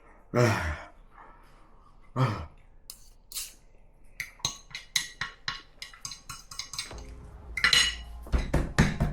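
Cutlery clinking and scraping on a dish in a quick, irregular run of clicks while a curry is eaten, with two short falling groans near the start and louder clatter near the end.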